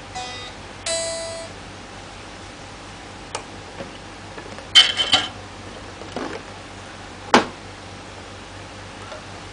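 ESP Horizon electric guitar through a multi-effects floor processor: a short note rings out in the first second and a half. Then come scattered sharp clicks and short noisy bursts as presets are switched with the foot, the loudest about five seconds in and another sharp click near seven and a half seconds.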